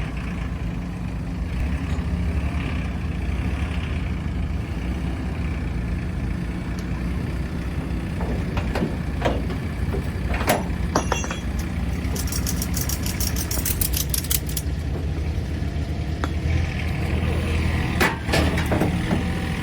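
A heavy vehicle's engine idling steadily, with scattered metallic clinks and knocks from unloading, and a fast run of high-pitched ticking about two-thirds of the way in.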